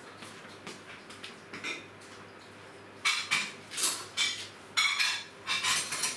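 Dishes and a pot clattering and clinking during washing up: a few faint clicks, then from about three seconds in a run of loud, sharp clatters several times a second.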